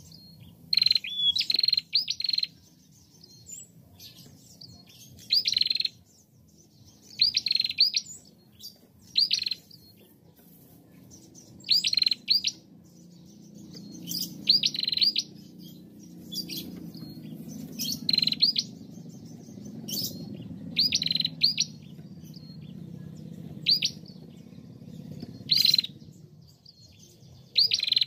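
A female tailorbird calling: short, high chirps in quick bursts of two or three notes, repeated every one to two seconds, about a dozen bursts in all. A faint low rumble sits underneath through the middle stretch.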